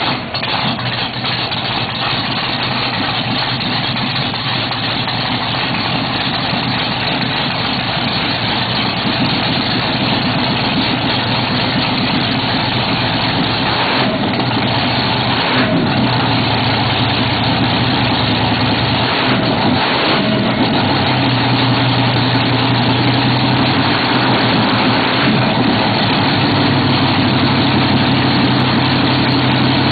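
Newly installed race engine running steadily at a fast idle just after its first start, its throttle held about a quarter open. The engine speed wavers slightly around the middle.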